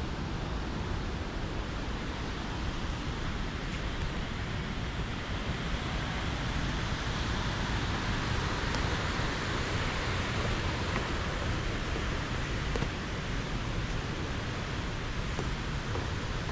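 Steady rushing of creek water in the canyon below, swelling slightly about halfway through.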